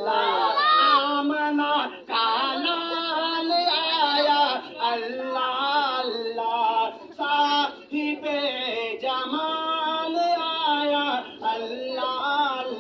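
A man singing a naat, an Islamic devotional song, in long drawn-out notes with wavering, ornamented pitch, pausing briefly for breath every few seconds.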